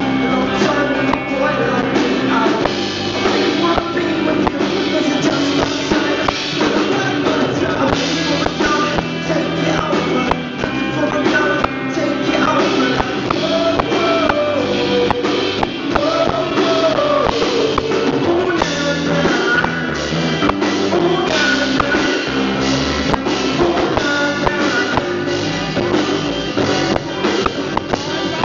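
A live rock band playing a song at a sound check: a male singer with electric guitar and drum kit, loud and continuous.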